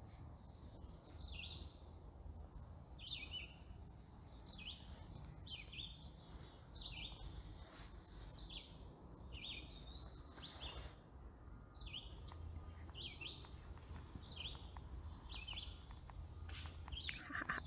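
Faint bird calls: short, high chirps repeated every second or so, most falling in pitch and a few rising, over a low steady background of outdoor noise.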